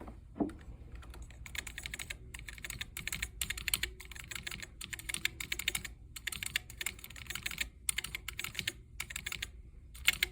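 Commodore SX-64 keyboard key pressed over and over in quick runs of clicks, with a soft thump near the start. The membrane edge that the key's posts rubbed against has just been trimmed away, and the key now sounds better, with the scratchy rubbing cured.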